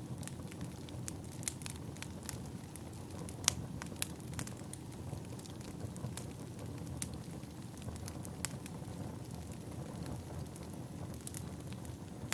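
Burning firewood crackling: a steady low rumble with scattered sharp pops, the loudest a few seconds in.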